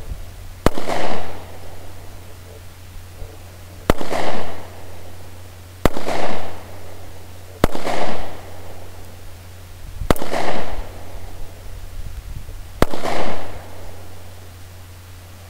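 Six shots from a Taurus PT709 Slim 9mm pistol firing steel-case ammunition, fired slowly at uneven gaps of about two to three seconds. Each is a sharp crack followed by a brief echo.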